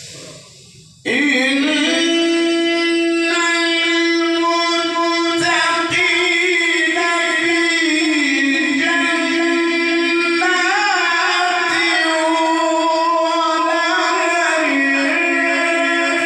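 A man reciting the Quran in the melodic tajweed style, one long unbroken held phrase that begins about a second in, with ornamented turns of pitch in its later part.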